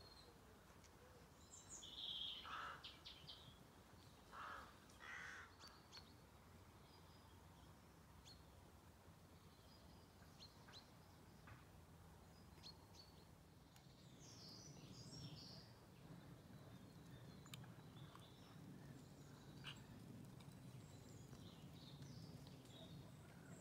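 Near-silent rural outdoor ambience with faint birds calling: scattered high chirps, and a few louder calls about two and five seconds in.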